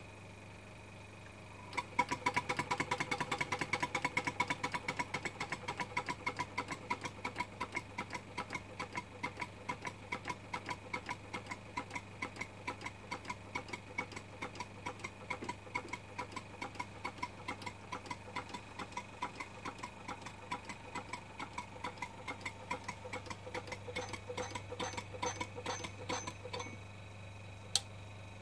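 Miniature Minnie traction engine's cylinder and valve gear running, a fast rhythmic mechanical clatter that starts about two seconds in. The beats gradually space out as it slows, and it stops a couple of seconds before the end, followed by a single click.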